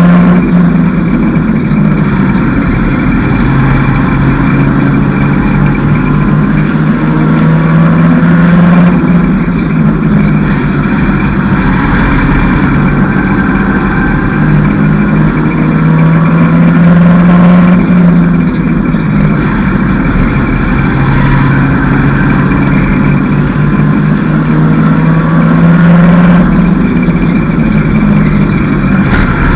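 Mini stock race car's four-cylinder engine, heard loud from inside the cockpit at race pace. Its pitch climbs on each straight and drops back for the turns, in a cycle of about every eight or nine seconds, over steady road and wind noise.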